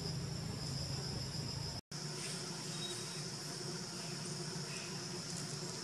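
Steady, high-pitched chorus of forest insects, cutting out completely for a split second about two seconds in before carrying on.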